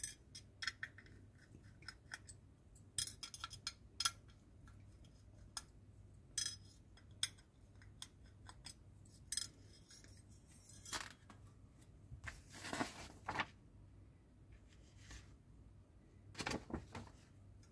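Precision screwdriver unscrewing tiny screws from a scale-model car door panel: scattered light clicks and scrapes of the blade in the screw heads, with a few small metallic clinks, and quiet between them.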